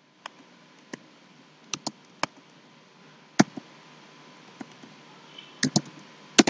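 Computer keyboard keystrokes: slow, irregular typing, single clicks spaced a second or so apart, then quicker pairs and a short cluster near the end.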